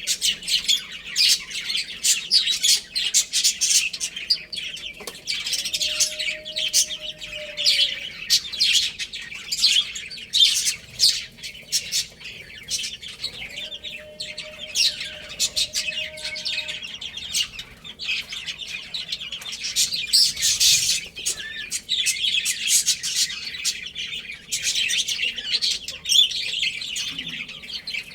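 A group of baby chicks peeping, with a dense, continuous overlapping chatter of short high chirps.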